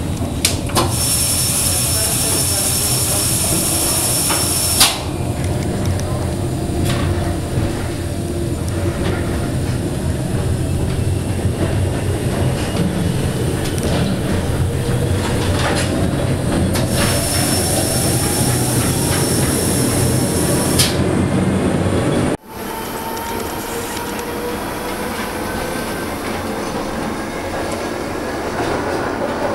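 Electric rack railcar of the Monte Generoso railway running, heard from inside: a steady rumble of running gear with a slowly rising motor whine, and twice a few seconds of high-pitched squeal. About two-thirds of the way through the sound cuts suddenly to a quieter stretch, where the whine rises again.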